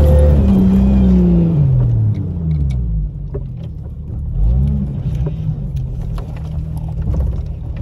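Jeep Cherokee engine heard from inside the cab, its revs falling off as the throttle is eased, a brief blip of revs about halfway through, then a steady low running drone with a few light clicks.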